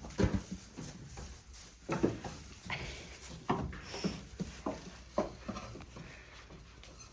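Goats feeding at their feeders: irregular knocks and clatters of feed and feeders, with scattered animal noises.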